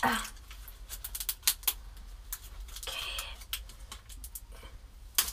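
Thin plastic wrapper crinkling and crackling as gloved hands peel it off a fizzy bath ball: a string of small sharp clicks, with a short rustle about three seconds in.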